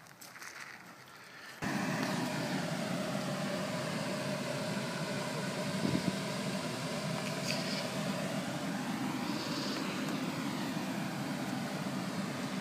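A steady mechanical drone that starts suddenly about two seconds in and runs evenly, after a few seconds of faint outdoor background.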